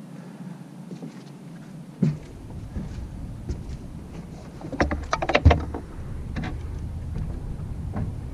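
Knocks and clatter of gear being handled in a fishing boat, loudest in a quick cluster about five seconds in, over a low rumble that starts suddenly about two seconds in.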